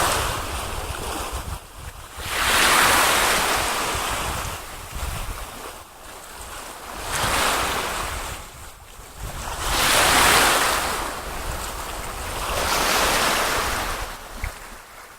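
Water washing in regular surges about every two and a half to three seconds around a kayak, each swell rising and falling over a second or so, with wind rumbling on the microphone.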